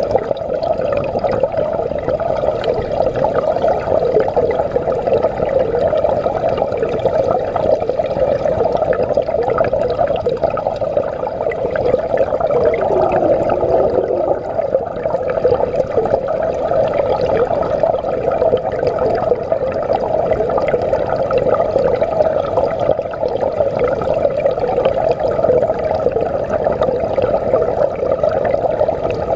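Water pouring into an aquaponics fish tank, heard from under the surface: a steady, muffled rushing and churning of the inflow and its bubbles.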